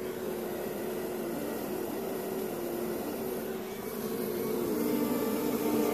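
Honeybee colony roaring inside a hive sealed shut, heard through its closed entrance disc: a steady hum of agitated bees wanting to get out, wavering in pitch and growing a little louder in the second half.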